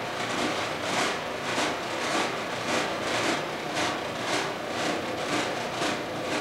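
Recording of car tyres running over bridge expansion joints, played back at half speed: a steady road hiss with a rhythmic swelling hit about twice a second.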